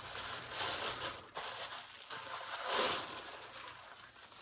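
Clear plastic wrapping rustling and crinkling as a clown mask is pulled out of it, loudest about three seconds in.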